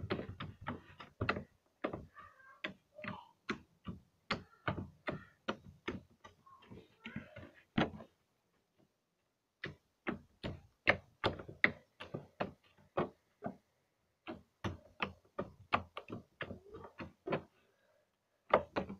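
Butter slime being pressed and poked flat on a tabletop with the fingertips, giving quick sticky clicks and small air-bubble pops, several a second, with a couple of short pauses.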